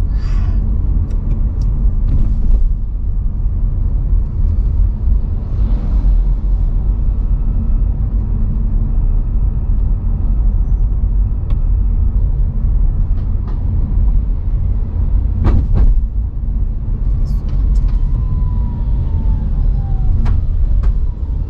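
Steady low road and tyre rumble heard inside the cabin of a moving VinFast VF5 electric car, with no engine sound, broken by a few short knocks and clicks from about the middle on.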